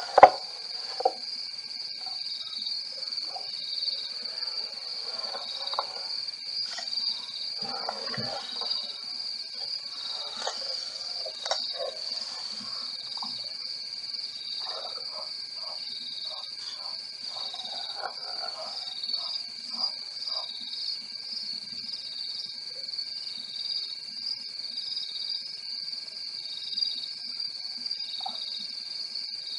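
Steady, high-pitched chorus of night insects: a continuous trill with a second, pulsing trill beneath it. Faint scattered scuffs and knocks come and go over the first twenty seconds or so.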